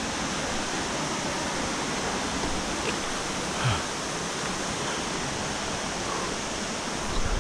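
A river rushing steadily over rocks.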